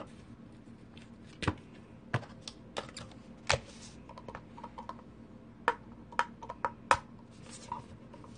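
Plastic straw being pushed and worked through the snap-on plastic lid of a cup drink, making a string of irregular sharp clicks and taps, the loudest around one and a half, three and a half and seven seconds in.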